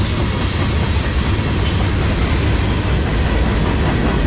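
Freight train cars, tank cars and then an autorack, rolling past close by: a steady rumble of steel wheels on the rails.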